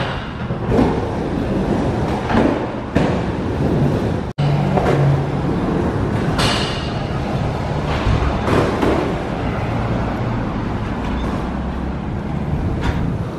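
Street traffic: cars passing on a road, in swells of noise that come and go, with a low steady engine hum for a few seconds after a sudden break about four seconds in.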